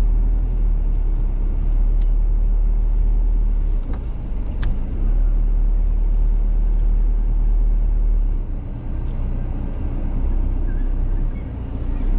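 Steady low rumble of an Isuzu D-Max's engine and tyres heard from inside the cab as it drives slowly along a soft sand track, with a few light knocks, the clearest about two seconds and about four and a half seconds in.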